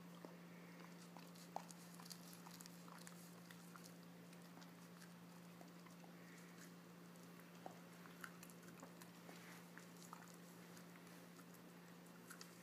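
A dog gnawing kernels off a corn cob held to its mouth: faint, irregular crunching and clicking bites, over a steady low hum.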